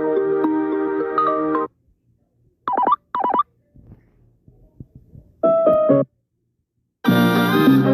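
Nokia C5-00 ringtones and alert tones played back one after another: a keyboard-like melody that stops a couple of seconds in, two quick chirps, a short beeping tone, then a fuller, louder tune starting near the end.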